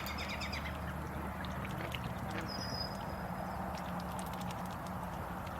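Steady outdoor background noise with a low hum and scattered faint clicks, a short run of chirps at the very start, and one thin high whistle-like call about two and a half seconds in.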